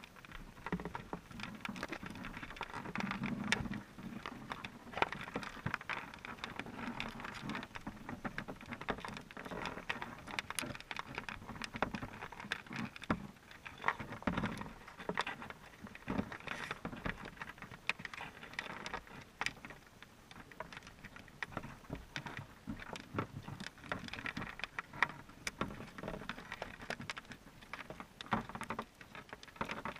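Underwater sound heard through a submerged GoPro's waterproof housing: a muffled wash of water noise with many small, irregular clicks and ticks throughout.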